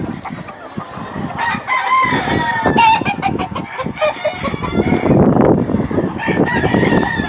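Gamefowl roosters crowing and clucking from their pens, with gusts of wind rumbling on the microphone about five seconds in.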